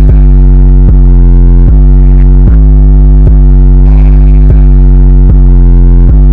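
Loud, distorted synthesizer music with heavy bass, a low note restruck about every 0.8 seconds in a steady repeating pattern.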